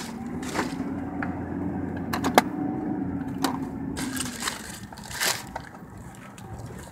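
Paper food wrapper and bag crinkling and knocking as they are handled inside a car, with a string of short crackles. A steady low hum runs underneath and fades out about four and a half seconds in.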